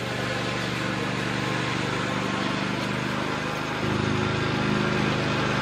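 An engine running steadily with a low, even hum, which gets louder about four seconds in.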